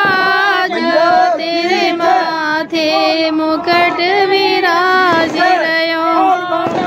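A woman's voice singing a song in long held, wavering notes, without a break.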